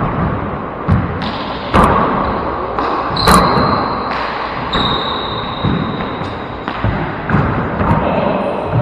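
Four-wall handball rally: a small rubber handball smacking off gloved hands and the court walls with a ringing echo, several hits at uneven intervals, the loudest about three seconds in. Sneakers squeak on the hardwood floor in the middle of the rally.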